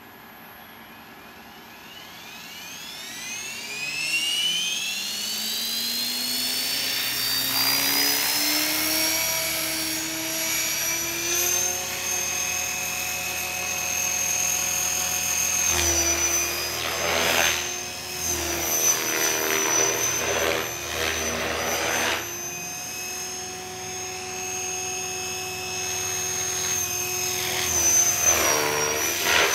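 Gaui Hurricane 550 electric RC helicopter spooling up from rest: the brushless motor and rotor whine rises steadily in pitch over several seconds, then holds at flight speed. From about halfway, the pitch wavers and the blades give loud rushes of noise as the helicopter is flown through manoeuvres.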